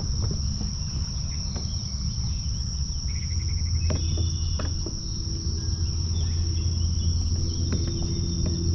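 Steady high-pitched trilling of crickets or similar insects over a loud low steady rumble, with scattered light clicks.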